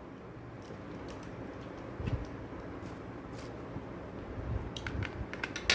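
Light clicks and soft knocks of small metal construction-kit parts being handled while a nut and bolt are turned tight, with a knock about two seconds in and a run of small clicks near the end.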